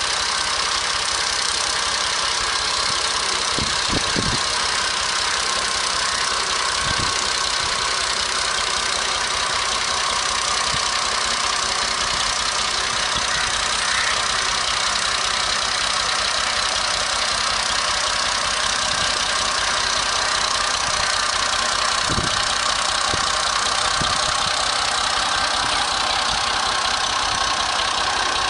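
An engine running steadily at constant speed, loud and unchanging, with a few faint knocks underneath.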